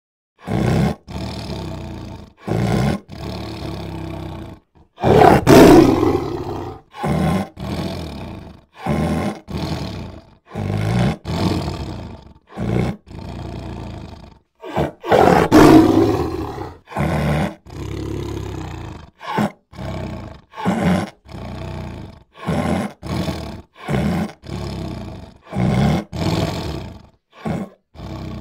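Big cats roaring and snarling in a chopped run of short bursts, each cut off abruptly, with two louder, longer roars about five and fifteen seconds in.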